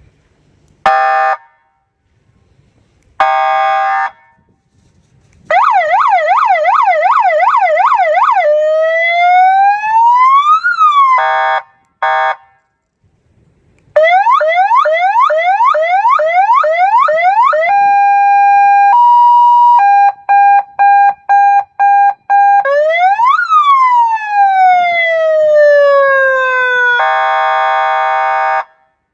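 A 12 V 100 W electronic siren with a horn loudspeaker works through its signal modes one after another. It gives two short buzzing horn blasts, then a fast yelp sweeping up and down, and a slow wail that rises and drops. Brief blips follow, then another fast yelp, a two-tone hi-lo, a rapidly pulsing tone, and a long falling wail that ends in a buzzing horn blast.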